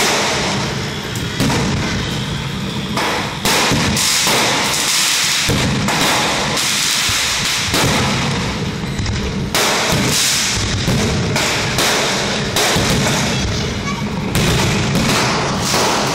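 Aerial firework shells bursting overhead: a barrage of loud bangs every second or two, each trailing off in a rumbling echo.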